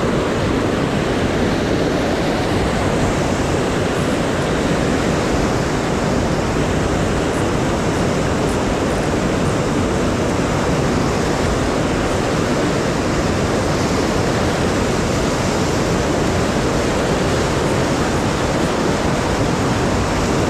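A swollen, muddy mountain river in high water, rushing through rocky rapids: a steady, loud wash of water noise.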